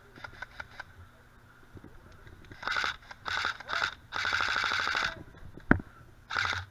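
Airsoft electric rifle firing five quick full-auto bursts, starting about two and a half seconds in, the longest lasting about a second, with a single sharp snap just before the last burst.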